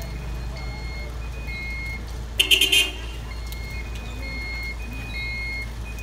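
Kobelco rough-terrain crane's warning alarm, short high beeps repeating about every half second in an alternating two-tone pattern, over the crane's engine running steadily. A short, loud pulsing blast sounds about two and a half seconds in.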